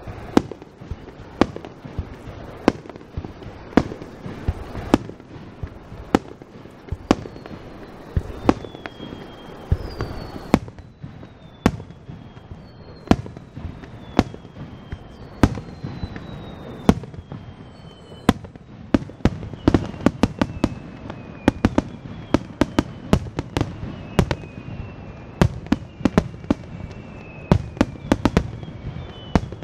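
Aerial firework shells bursting in a running series of sharp bangs. From about seven seconds in they are joined by repeated whistles that fall in pitch. Over the last ten seconds the bangs come thick and fast.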